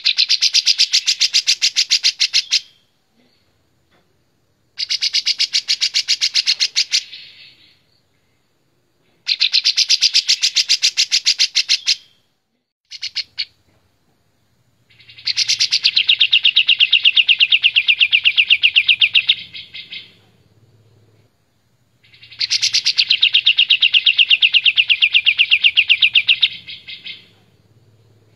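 A caged kapas tembak, a bulbul, singing loud, clear phrases of rapid repeated notes. The phrases last about two to five seconds with short pauses between, six in all, the later ones longer.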